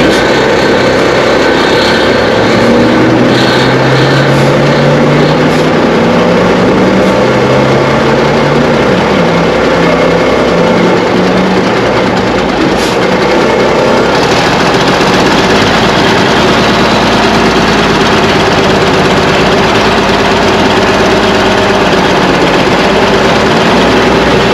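Heavy diesel truck engine running loud and close, its pitch rising and falling a few times over the first ten seconds, then running steadier with more hiss from about fourteen seconds in.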